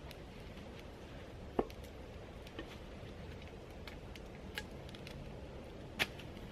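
Axe chopping knots and twigs off a wooden pole stood upright on a stump: a few sharp knocks, one about a second and a half in and the loudest near the end, with fainter ticks between.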